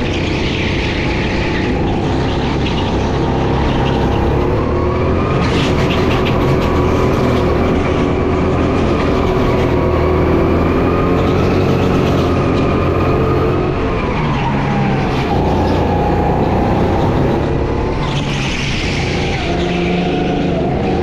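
Racing go-kart engine running hard, its pitch climbing steadily along a straight, dropping about two-thirds of the way through as the kart slows for a corner, then climbing again. A hiss of tyre scrub rises near the start and again near the end.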